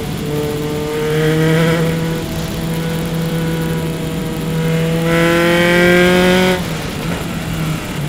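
Single-seater race car engine, heard onboard, pulling hard at high revs with its pitch climbing slowly for about six and a half seconds. Near the end the note drops abruptly to a lower, steadier one.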